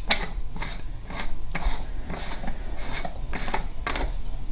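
The threaded bottom bowl of a polished billet-aluminium oil catch can being unscrewed by hand, its threads scraping in short strokes about twice a second as it is turned hand over hand.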